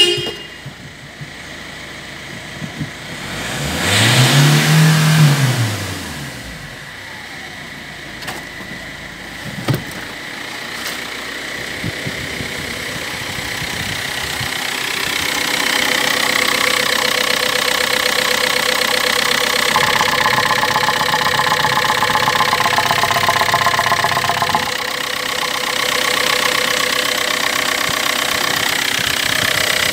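Kia Ceed's 1.6 CRDi D4FB four-cylinder turbodiesel running: revved once briefly about four seconds in, rising and falling, then idling steadily. It grows louder at the open engine bay in the second half.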